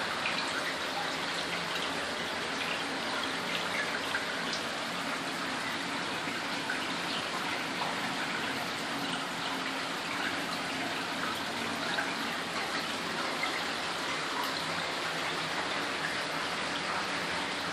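Small cave stream trickling and splashing over rocks: a steady rushing of water with faint small splashes here and there.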